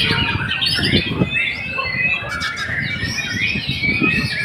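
White-rumped shama (murai batu) singing a fast, continuous run of varied whistles and chattering notes.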